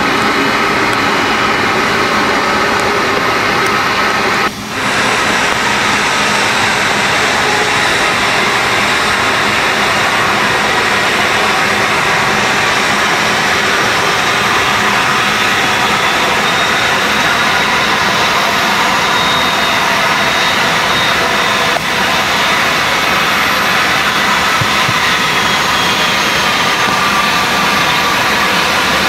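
Airbus A330 freighter's jet engines running steadily at low taxi thrust, a loud, even roar, with a short drop about four and a half seconds in.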